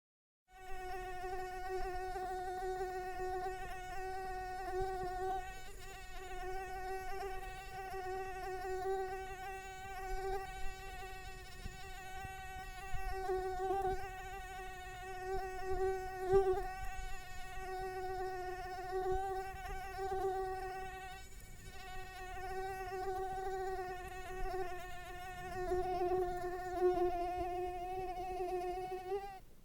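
Mosquito buzzing in flight: a steady high-pitched whine that wavers slightly in pitch and swells and fades in loudness as it moves.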